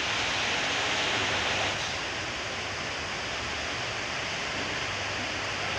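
Steady hiss of background noise with no distinct events, a little louder for the first two seconds.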